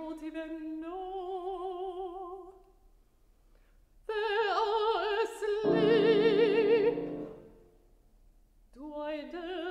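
Mezzo-soprano singing an opera aria with wide vibrato, accompanied by a grand piano. She holds a note, pauses briefly, then sings a louder phrase rising to a held high note with piano chords underneath, and starts a new phrase near the end.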